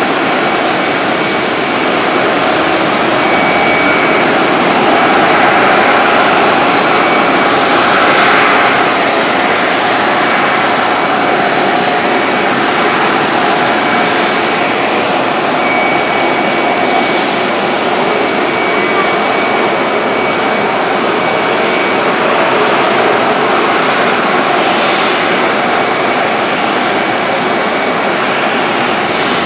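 Boeing 747-400D's four General Electric CF6-80C2 turbofans running at taxi thrust: a steady jet whine and rush with a few held high tones, swelling slightly a few seconds in.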